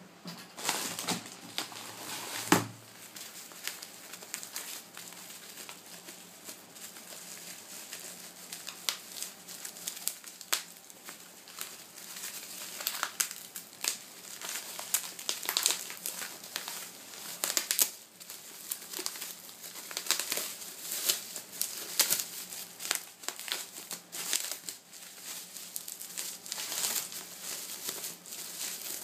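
Plastic packaging crinkling and rustling in irregular bursts of crackles as the replacement iPad 2 glass digitizer is unwrapped, with one sharp click about two and a half seconds in.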